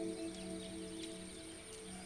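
Background score's held, ringing chord, like a singing bowl, fading away. Underneath is faint outdoor ambience: a steady high-pitched hum with scattered soft chirps and ticks.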